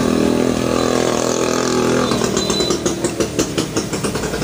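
A steady motor hum runs throughout. From about halfway, quick clicks and rattles come as the plastic watch is pushed into a plastic jar of water.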